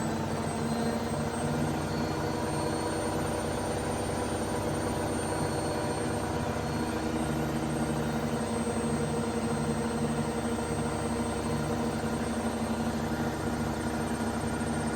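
Candy washing machine in its spin cycle, the drum spinning fast with a steady mechanical hum as the machine vibrates and knocks.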